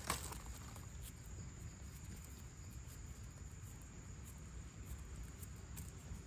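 Faint, steady insect drone with a thin high-pitched tone over quiet forest ambience, with one small tick right at the start.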